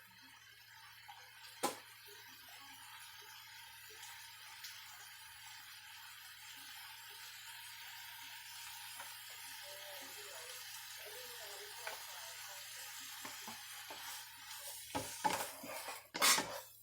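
Food sizzling in a frying pan, a steady hiss that slowly grows louder. There is a sharp clink about a second and a half in, and a clatter of utensils against the pan near the end.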